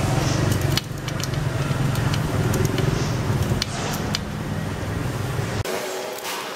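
A motor vehicle engine running steadily, with light metallic clicks of bicycle spokes and nipples knocking against the rim as a wheel is laced by hand. The engine noise cuts off abruptly about five and a half seconds in.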